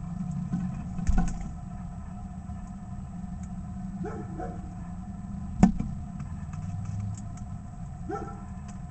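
Northern cardinal feeding at a seed feeder just above the microphone, its beak knocking sharply on the feeder about a second in and again, louder, about five and a half seconds in, over a steady low hum.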